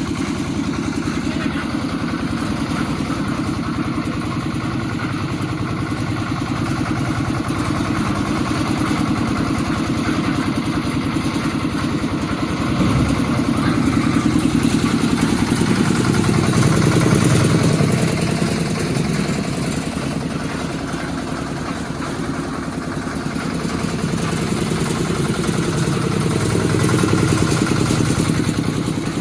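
A small engine on construction machinery running steadily with an even chugging rhythm, getting louder for a few seconds about halfway through and again near the end.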